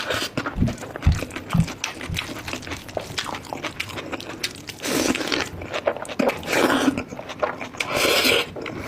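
Close-miked eating of spicy goat bone marrow and rice: wet chewing and many quick lip smacks, with a few longer sucking sounds about five, six and a half and eight seconds in, and some low bumps near the start.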